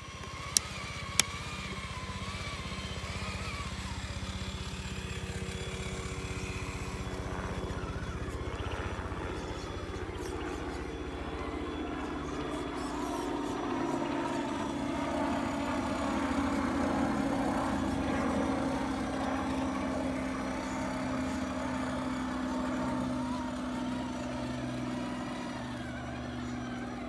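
Electric RC monster trucks driving, their motor whine rising and falling with the throttle, with two sharp clicks within the first second or so.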